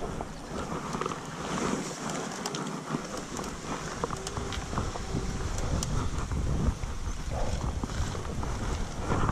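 Wind buffeting the microphone of a moving bicycle, with the low rumble growing stronger about three seconds in, over the hiss of tyres rolling on a wet road.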